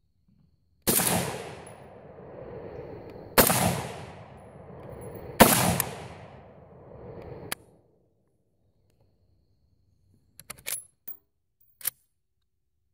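Three rifle shots from a Ruger Mini-14 semi-automatic, about two seconds apart, each followed by a long echo. A few seconds later come several short metallic clicks of the rifle being handled.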